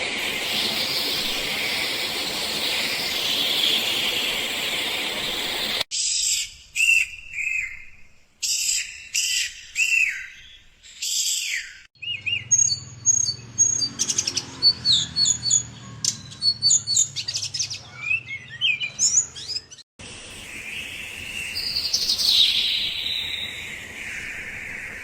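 Birds calling and singing in several separate recordings joined one after another, with abrupt changes about 6, 12 and 20 seconds in: a dense chorus, then repeated short calls, then rapid high chirps over a low hum, then a dense chorus again.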